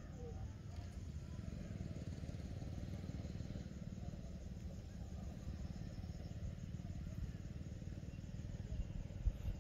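A steady low outdoor rumble with no clear pitch, and faint insects chirring high above it.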